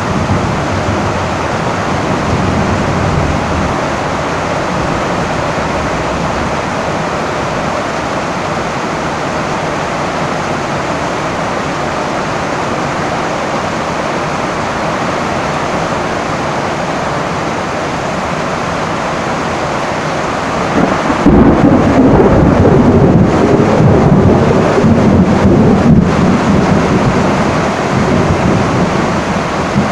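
Heavy rain falling steadily on a tin roof. About two-thirds of the way through, a loud thunderclap breaks in and rumbles low for several seconds before easing.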